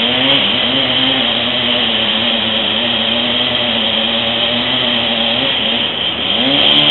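Chainsaw running steadily at high speed while cutting into a big dead fir; its pitch sags and then climbs back near the end.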